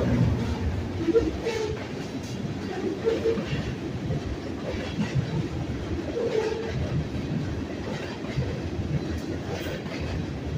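Freight train cars (tank cars and covered hoppers) rolling past with a steady rumble, their wheels clacking now and then over rail joints.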